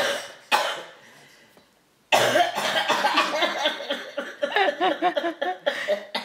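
Coughing: two short coughs in the first second, then, after a brief gap, several seconds of continuous throaty, hacking coughing with a voice in it that wavers up and down in pitch.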